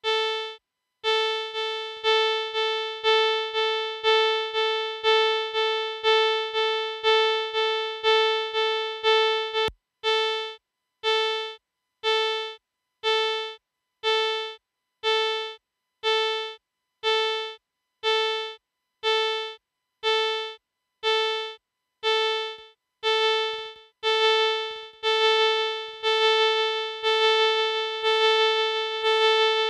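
A synthesized tone at one steady pitch from a Daisy Pod delay patch, repeated by the delay as evenly spaced echoes at about two a second. About ten seconds in, the echoes spread further apart as the delay time is lengthened. Near the end the repeats run together into an almost continuous tone as the feedback builds.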